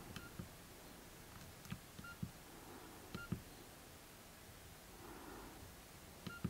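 Nokia N70 mobile phone's keypad being pressed: soft button clicks in small groups, four of them each followed by a short, high key beep, with pauses between the groups.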